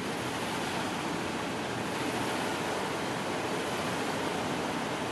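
Double-stack freight train's well cars rolling slowly past, a steady, even rush of wheels on rail.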